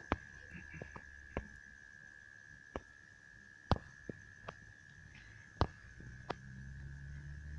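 A faint steady high-pitched whine with about ten irregular sharp clicks, and a low hum that comes in near the end.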